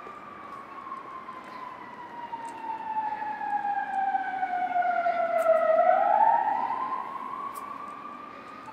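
Emergency vehicle siren wailing: one slow tone that falls for several seconds and then rises again, growing louder to a peak about six seconds in and then fading, over steady street-traffic noise.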